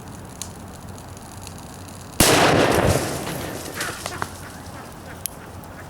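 A bottle of liquid nitrogen bursting inside a pumpkin filled with hot water: one sudden loud bang about two seconds in, with a noisy tail that fades over a second or so, then a few faint clicks.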